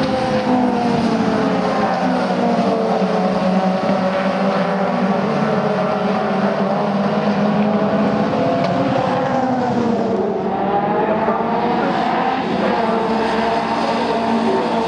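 Caterham Seven race cars' four-cylinder engines running hard on track, several engine notes overlapping and rising and falling in pitch as the cars pass and change gear. About ten seconds in the main engine note drops away and then climbs again.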